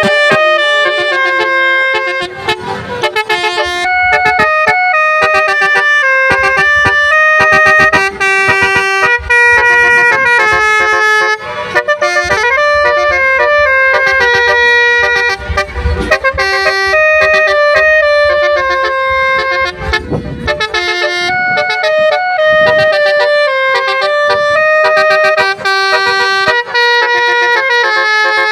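Basuri telolet horn, a multi-tone musical vehicle horn, playing a tune note after note, the pitch stepping several times a second.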